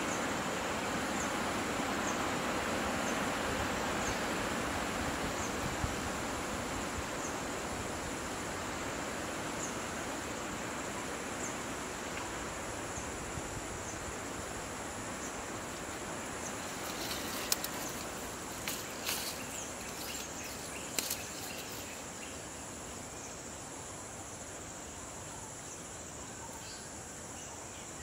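Insects trilling steadily at a high pitch over an open rural outdoor ambience, with a faint chirp about once a second. A few sharp cracks and clicks come close together about two-thirds of the way through.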